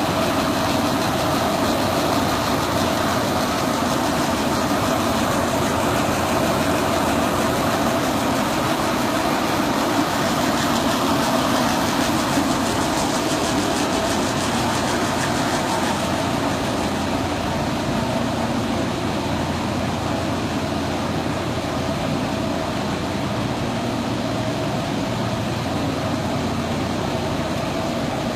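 Cable production line machinery running: a steady mechanical drone with a few held tones under a constant noise, no starts or stops.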